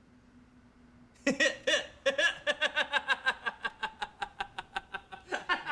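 A man bursts into loud, rapid laughter about a second in, a steady run of short 'ha-ha-ha' pulses about five a second, after a moment of quiet room tone.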